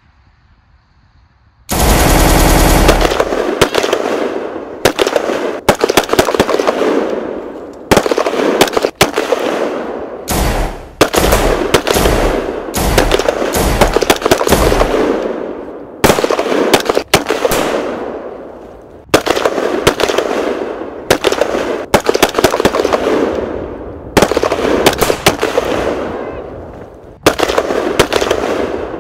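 Automatic gunfire in rapid bursts, starting suddenly about two seconds in and running as a firefight, each burst trailing off before the next begins.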